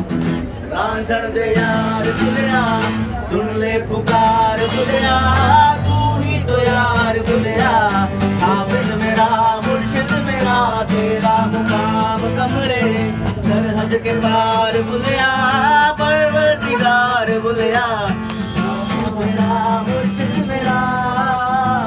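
Acoustic guitar being played with a singing voice carrying a wavering melody over it.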